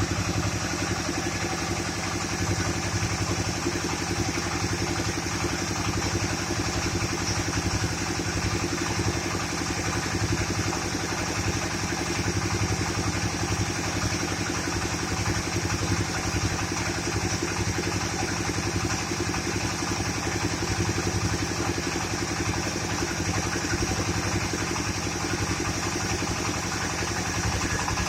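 Rice milling machine running steadily, its engine firing in a fast, even beat under a constant high whir from the mill.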